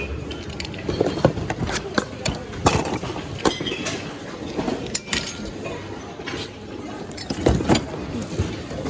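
Irregular knocks and clinks of secondhand goods being handled and shifted in thrift-store outlet bins, over a murmur of background chatter.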